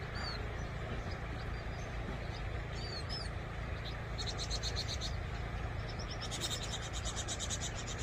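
Vinous-throated parrotbills calling from dense shrubbery: a few short high chirps, then rapid twittering trills of about ten notes a second, the louder trill near the end. A steady low background rumble runs underneath.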